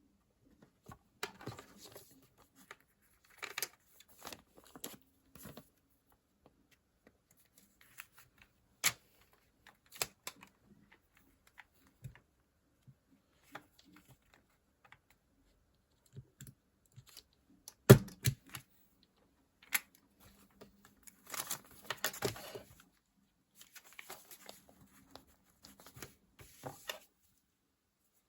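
Close-up handling of a paper planner and stationery on a desk: scattered light taps and clicks with brief papery rustles and peeling, one sharp knock about two-thirds of the way through, and a longer rustle a few seconds later.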